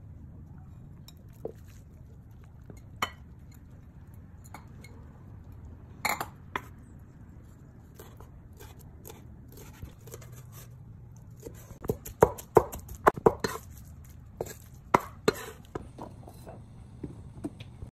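Kitchen knife chopping peeled raw shrimp on a wooden cutting board: a few scattered knocks, then a quick run of sharp chops in the second half.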